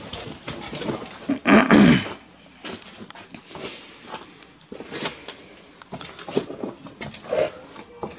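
Footsteps and scattered knocks and crunches over a debris-strewn floor, with one short, loud, rough burst about a second and a half in.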